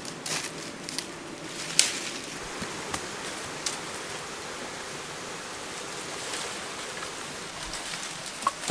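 Bare feet treading through dry forest leaf litter and twigs, with several sharp crackles, the loudest pair near the end, over a steady rushing background noise.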